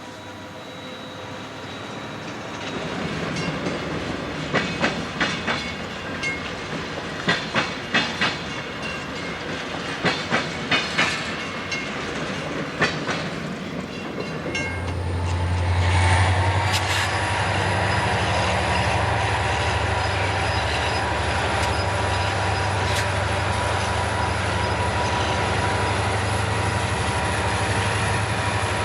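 A train passing close by: wheels clicking over rail joints in quick groups of clacks, then a steady heavy rumble from about halfway through.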